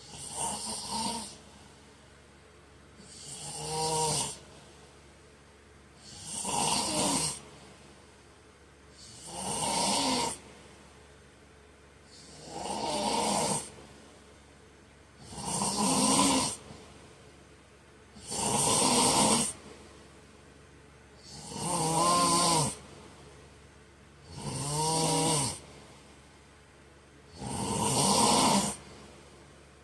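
A man snoring in his sleep, steady and rhythmic: ten snores, one about every three seconds, each a buzzing breath of about a second.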